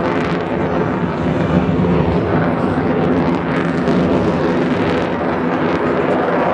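Loud, steady thrust noise from an F-35 Lightning II's single Pratt & Whitney F135 jet engine at high power.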